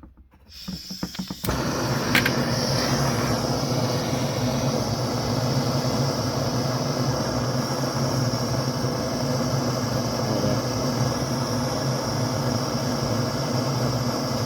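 A steady mechanical running noise with a low hum starts abruptly about a second and a half in and holds level.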